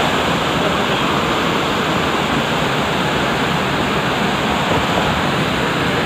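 Mountain waterfall pouring among boulders: a loud, steady rush of water that does not change.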